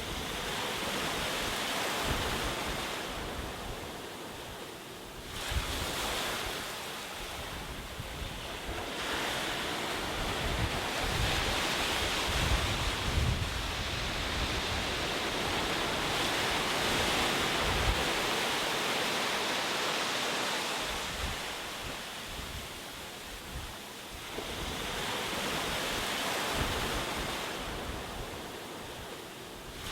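Ocean surf: waves breaking and washing up a shore, the noise swelling and ebbing in long surges several seconds apart.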